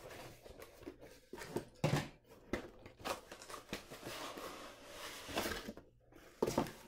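A cardboard board-game box and the cardboard pieces inside it being opened and handled: irregular rustling, scraping and light knocks.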